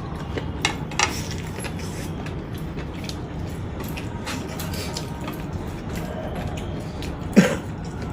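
A person eating: faint mouth clicks and chewing over a steady background hum, with one short, louder sound about seven seconds in.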